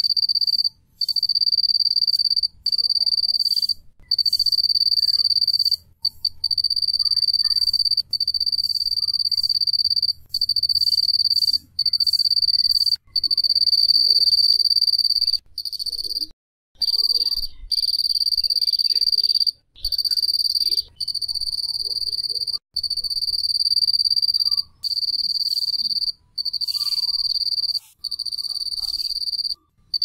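Cricket singing a steady high-pitched trill, in runs of one to two seconds broken by brief pauses.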